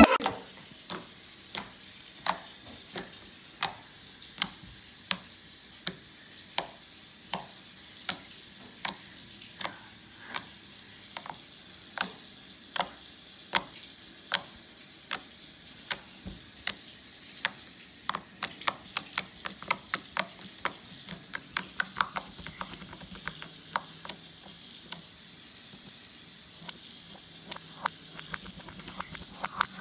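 Slime being pressed and squeezed by fingers, giving sharp wet clicks and pops. They come about one every 0.7 seconds at first, then faster and more irregular from a little past the middle.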